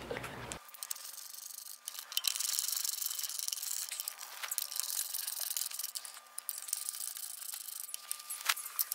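Scattered clicks and rubbing of steel bolts and a ratchet wrench as the motor mounting plate is bolted onto a Hayward Super II pool pump motor.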